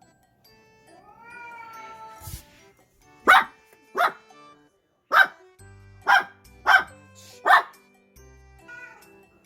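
A cat gives one drawn-out meow, then a dog barks six short, sharp, loud barks over about four seconds, and a faint meow follows near the end. Light background music plays underneath.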